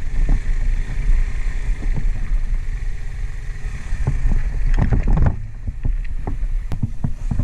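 Motorcycle engine running at low speed as the bike rolls over loose rocks, with repeated knocks and clatter from the wheels and suspension hitting stones, thickest about four to five seconds in.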